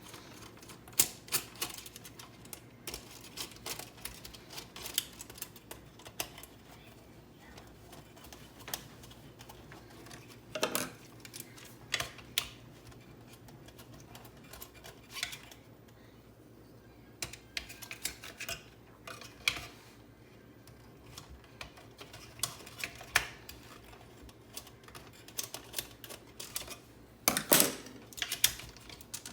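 Irregular clicks, taps and knocks of a Keurig coffee maker's plastic housing and parts being handled and taken apart, with a louder knock near the end.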